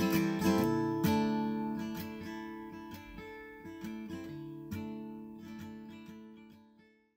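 Acoustic guitar music: a few strummed chords near the start, then sparser plucked notes ringing on and fading out to silence at the end.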